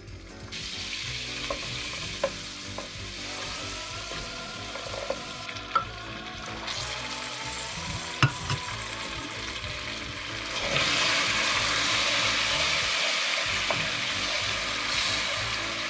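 Butter sizzling in a skillet of melted caramelized sugar, with a few sharp clicks along the way. The sizzle grows louder about eleven seconds in, and a wooden spoon stirs the caramel near the end.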